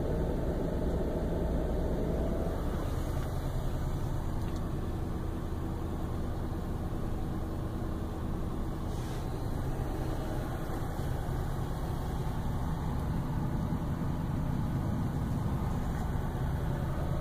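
2008 Ford Crown Victoria Police Interceptor's 4.6-litre V8 running a steady cold-start fast idle of about 1,300 rpm, heard from inside the cabin.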